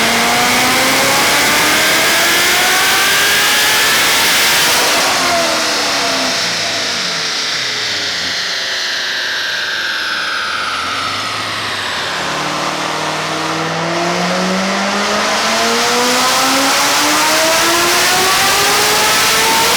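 Supercharged V8 of a ProCharger-equipped Corvette C7 Z06 making full-throttle dyno pulls on an E85 blend: the revs climb steadily, cut off about five seconds in and wind down with a falling high whine, then climb again in a second pull near the end.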